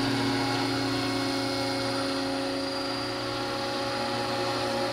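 Scale RC helicopter hovering, its main and tail rotors and drive giving a steady whine of several even tones.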